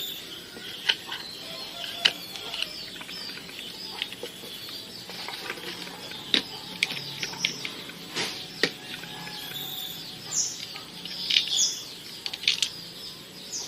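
Small birds chirping and twittering in short, high calls, with scattered sharp clicks and taps.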